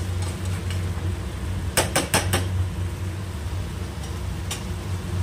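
Metal spatula knocking and scraping against a metal kadai while stirring, with a quick run of four clinks about two seconds in and another near the end, over a steady low hum.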